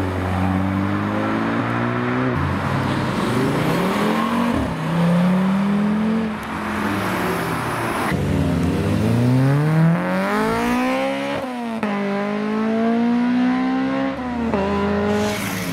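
Several performance cars, among them a VW Golf GTI hatchback, an Audi TT and a Honda Civic hatchback, accelerating hard away one after another. Each engine's pitch climbs and then drops back at gear changes, and the sound jumps abruptly from one car to the next every few seconds.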